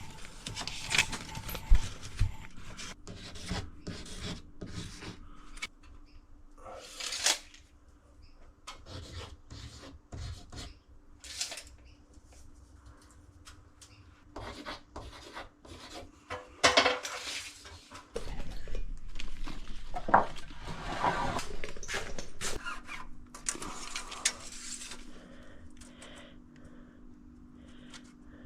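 Irregular scraping and rubbing with scattered light knocks and clinks, from hand work on plasterboard and tools; no power tool is running.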